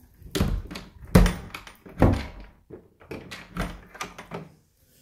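Wooden door pushed shut against its frame about four times, the new latch thunking against the jamb and strike plate while it is tested for whether it catches; the knocks about a second and two seconds in are the loudest.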